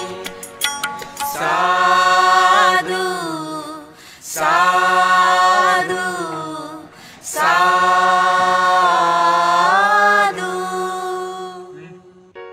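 Buddhist devotional song: one voice sings three long, held phrases with ornamented turns over a steady low drone, and fades out about ten seconds in.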